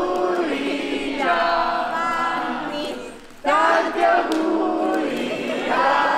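A group of voices singing together in held notes, breaking off briefly a little past halfway and then starting again.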